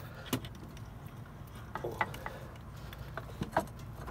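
Sharp metallic clicks and knocks as a Vortech supercharger and its mounting bracket are handled and pushed into place against the engine, about half a dozen taps spread through, over a low steady hum.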